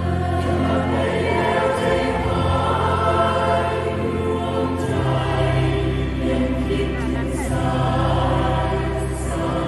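Mixed choir singing sustained chords over steady low bass notes; the bass shifts to a new note about five seconds in.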